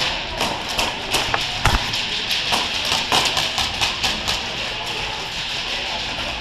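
Airsoft guns firing in play: irregular sharp clicks and pops, several a second, over a steady hiss.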